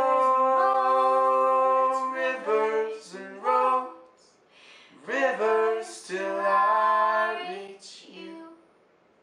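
A woman and a man singing in close two-part harmony, unaccompanied. A long held note is followed by a few short notes, then a second phrase that dies away about eight and a half seconds in.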